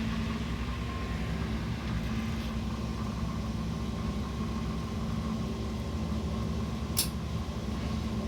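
MerCruiser 8.1-litre V8 marine engine running steadily, with an even, unchanging hum. A single sharp click comes about seven seconds in.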